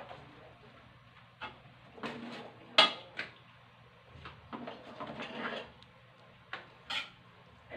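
Spatula scraping and knocking against a large wok while stirring and tossing noodles: a run of irregular clanks and short scrapes, the sharpest about three seconds in.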